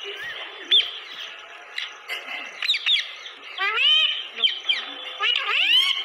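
Rose-ringed parakeets calling: a few short sharp chirps, then two longer calls that rise and fall in pitch, about a second and a half apart, the second running up to the end.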